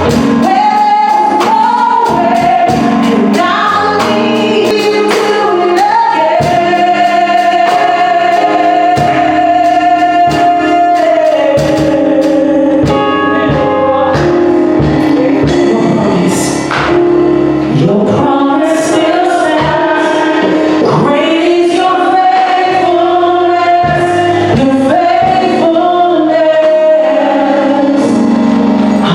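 Gospel worship song: singers hold long, sliding notes over instrumental accompaniment with a steady beat.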